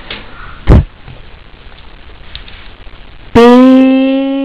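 A single knock about a second in. Near the end, a voice suddenly holds one long, level note, drawn out like a sung letter sound.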